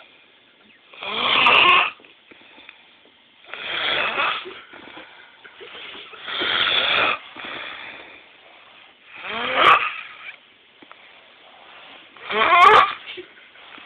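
Snoring: five snores about three seconds apart, each lasting about a second.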